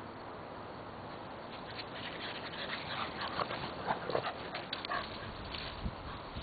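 A dog panting close to the microphone, with a couple of brief faint whines about four seconds in.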